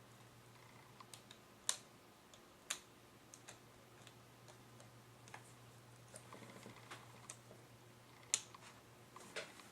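Scattered light clicks and taps from handling the plastic and metal parts of a laptop screen assembly during a panel swap, with three sharper clicks standing out, over a faint steady low hum.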